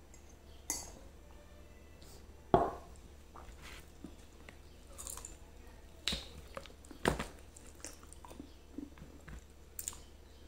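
Close-up mouth sounds of eating grilled chicken by hand: chewing and biting, with scattered sharp clicks and knocks, the loudest about two and a half seconds in.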